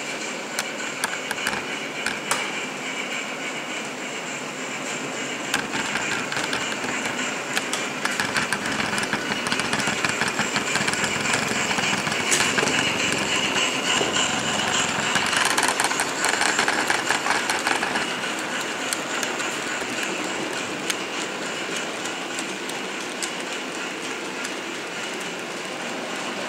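Model railway trains running on the layout track: a steady mechanical running noise with a rapid clatter of wheels clicking over the rail joints. It grows louder from about a third of the way in as a locomotive passes close, then eases off near the end.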